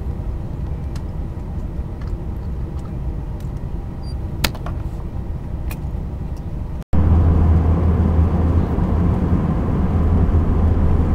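Car driving, heard from inside the cabin: a steady low rumble of road and engine noise with a few faint clicks. About seven seconds in the sound cuts out for an instant and comes back louder as a steady low drone.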